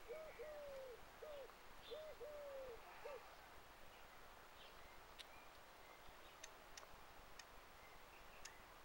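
A pigeon cooing in the background: two phrases of low coos, each a short note, a long drawn-out note and another short note, stopping about three seconds in. A few faint ticks and small chirps follow.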